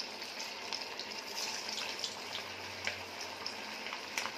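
Cabbage Manchurian balls deep-frying in hot oil in a kadai: a steady sizzle with scattered crackles.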